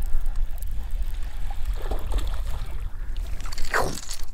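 Low wind rumble and water against the side of a small fishing boat while a hooked speckled trout is being reeled in, with one short, sharper sound near the end.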